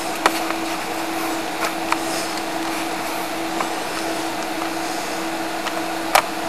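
A steady machine hum, one low tone held under an even hiss, with a few light clicks; the sharpest is a double click about six seconds in.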